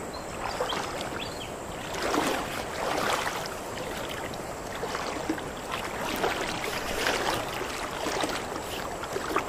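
Shallow river water sloshing and swishing, over a steady rush of flowing water, with irregular louder swishes every second or so.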